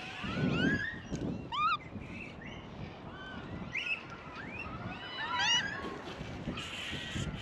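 Japanese macaques giving many short coo calls, each an arching rise and fall in pitch, overlapping one another from several monkeys at once over a low murmur.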